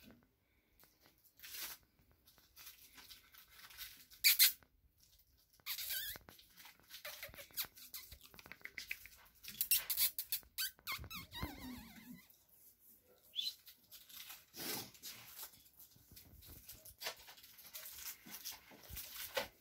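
Pomeranian puppy scrabbling about on a fleece blanket: irregular rustles and scratches with scattered squeaky noises.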